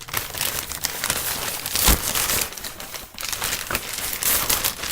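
Crinkly packaging being handled, rustling and crackling with a sharper crunch about two seconds in.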